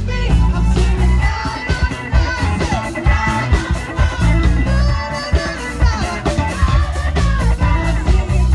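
A live rock band playing loudly: drums, bass, electric guitar and keyboard under a man singing into a microphone.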